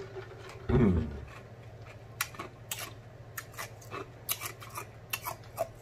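Close-up mouth sounds of chewing pig feet: a run of sharp lip-smacking clicks, with one short, low vocal sound falling in pitch about a second in.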